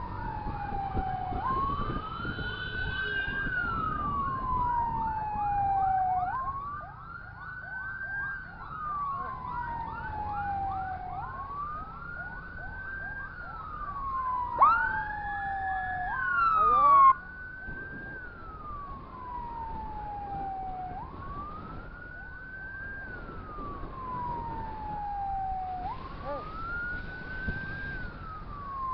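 Emergency sirens of an ambulance and its escort sounding together over road noise. One slow wail rises quickly and falls over about four seconds, repeating about every five seconds. Under it runs a fast siren of about four short sweeps a second. About halfway through, a louder siren sweep cuts in for a couple of seconds and stops suddenly.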